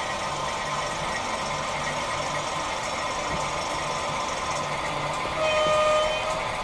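Sound decoder of a Brawa HO-scale model diesel locomotive playing a diesel engine running with a steady, slow rhythmic beat through the model's small speaker. A single horn blast of about a second sounds near the end.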